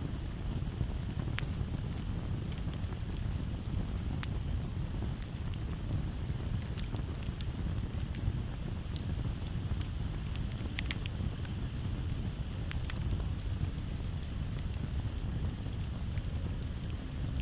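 Campfire crackling: irregular sharp pops and snaps over a steady low rush of flame and breeze, with crickets chirring in a continuous high band behind.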